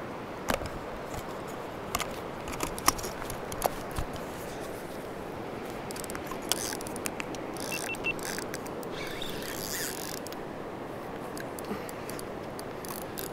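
Steady rush of a shallow, fast-flowing river over stones, with a few small sharp clicks in the first few seconds.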